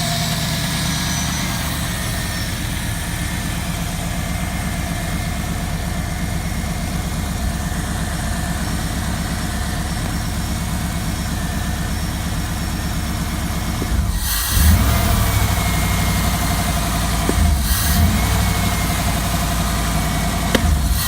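1993 Camaro Z28's 5.7-litre LT1 V8 idling steadily after starting. About two-thirds of the way through the sound changes abruptly to a louder, rougher running, with a few sharp knocks.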